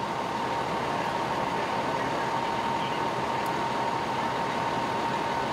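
Steady running noise of fire engines idling, with a constant high-pitched tone running through it.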